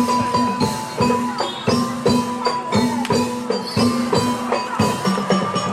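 Reog-style Javanese gamelan music: fast, evenly repeating struck percussion under held melody notes.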